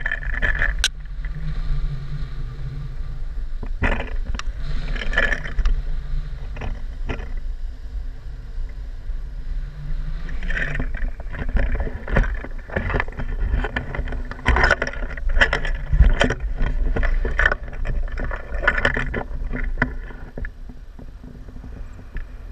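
Wind from the airflow of a paraglider in flight buffeting the action camera's microphone: a continuous low rushing rumble with irregular gusty surges.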